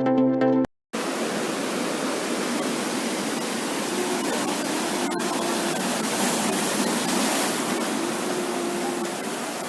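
Electronic intro music cuts off under a second in; after a brief silence, the steady wash of ocean surf breaking on a beach takes over.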